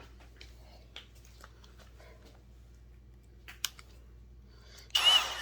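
Light clicks and taps of tools and metal parts being handled, then near the end a power drill starts up loudly and runs, to bore oil holes in a chainsaw bar.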